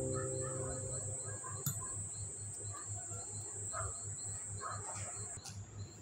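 Piano notes fading out, followed by faint background noise with a steady high tone, a low pulsing hum, and faint high ticks repeating a few times a second.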